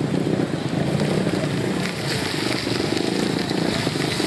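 Angkot minivan's engine running and its tyres rolling as it drives slowly past over a potholed, muddy road, a steady close-up vehicle noise.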